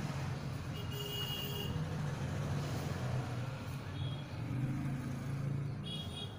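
A steady low rumble of a running road vehicle, with a couple of brief high tones, one about a second in and one near the end.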